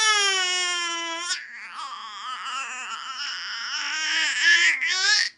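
A baby squealing loudly on a high note that slides down in pitch, then keeps up a lower, wavering, raspy drawn-out voice sound. This is playful vocal noise-making, not crying.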